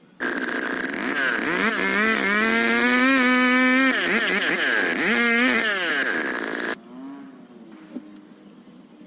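Stihl 070 two-stroke chainsaw revving, its pitch rising and falling several times as the throttle is worked. The sound cuts in suddenly just after the start and cuts off suddenly about two-thirds of the way through.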